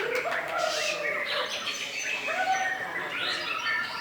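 Many caged songbirds singing at once, overlapping chirps, trills and warbled phrases in a competition chorus.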